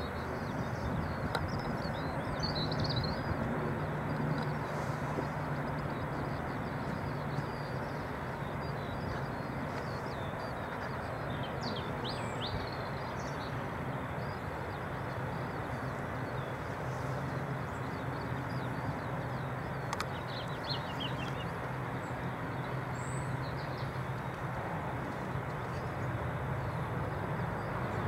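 Airbus A380's four jet engines running at low taxi power: a steady, even rumble with a low hum. Small birds chirp now and then.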